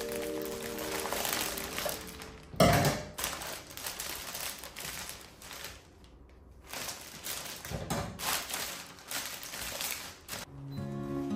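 Cellophane and kraft-paper wrapping of a rose bouquet crinkling and rustling as it is pulled off by hand. There is a thump about a third of the way in and a lighter knock later.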